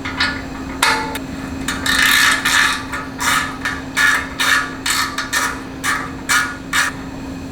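A wrench working the nuts that hold the stock silencer on a Royal Enfield Himalayan: a run of short, sharp metallic clicks and scrapes, about two a second in the second half, over a steady low hum.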